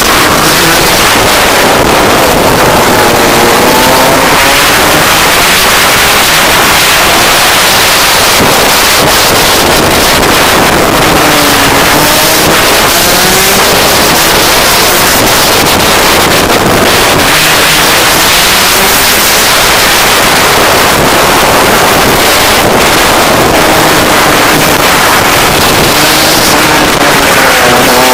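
Rotax DD2 kart's 125 cc two-stroke engine running at speed, its pitch rising and falling again and again as the driver accelerates and lifts. Heavy wind noise on the microphone.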